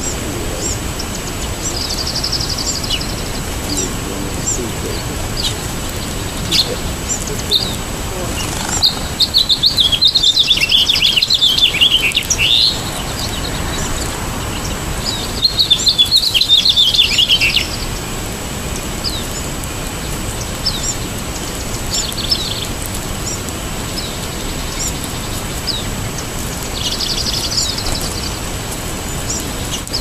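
Small songbirds calling: scattered sharp high chip notes throughout, with two longer songs of about three seconds each in the middle, each a quick run of notes falling in pitch, over a steady background hiss.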